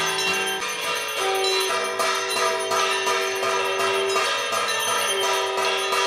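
Music with jingling bells struck in a steady rhythm over held melody notes that change pitch.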